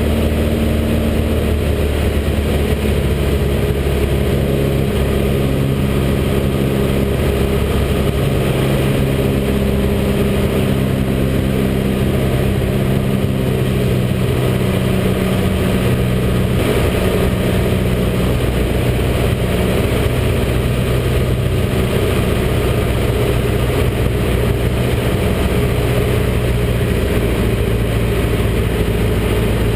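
Light aircraft's piston engine and propeller droning steadily in the cabin in flight, with small shifts in pitch now and then.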